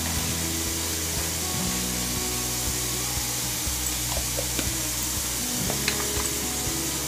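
Chicken strips and sliced mushrooms sizzling in a frying pan, a steady hiss under background music with sustained low notes, and a few faint clicks.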